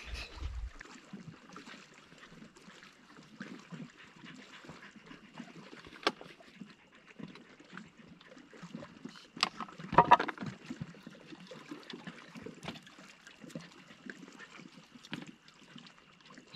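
Small waves lapping and trickling against a rocky lakeshore, with a few sharp clicks and knocks, the loudest about ten seconds in.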